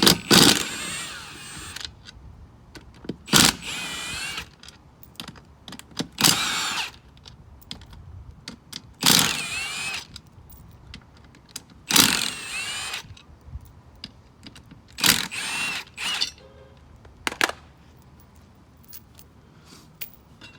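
Power tool backing out the bolts of a wheel's beadlock ring one after another: about seven short whirring runs of a second or so each, roughly three seconds apart, the pitch bending as each bolt spins loose.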